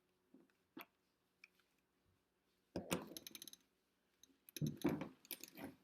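Plastic speed cube being turned, its layers clicking and clacking in two quick flurries, about three seconds in and again near the end, with a few single clicks before them.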